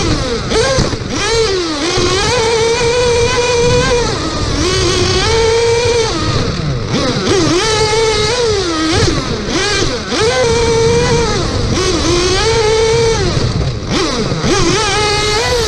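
1/8-scale nitro RC buggy's two-stroke glow engine heard up close from a camera mounted on the car, revving hard on the straights and dropping off into the corners. The pitch climbs, holds high and falls again about every two seconds, with a rushing noise from the tyres underneath.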